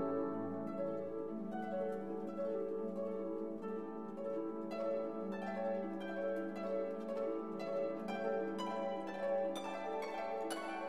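Background instrumental music: sustained notes with plucked, harp-like notes that come more often from about halfway through.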